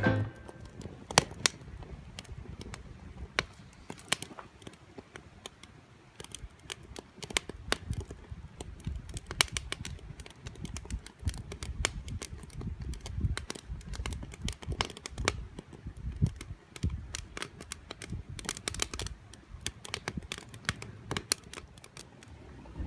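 Irregular sharp clicks and light knocks, scattered unevenly, over a low rumble of handling.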